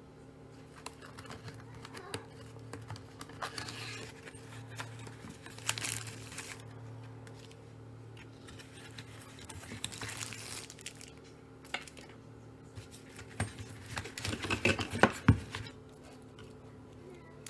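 Handling noises: rustling and crinkling with scattered small clicks, and a cluster of louder knocks about fourteen seconds in, over a steady low hum.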